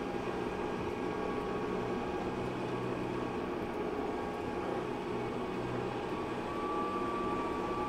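Tractor engine running steadily as the tractor drives along, raking hay.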